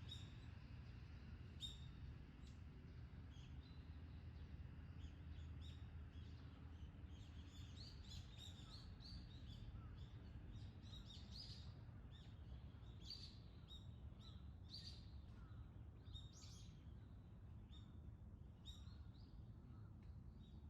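Faint, scattered bird chirps that grow busier about a third of the way in, over a steady low background rumble.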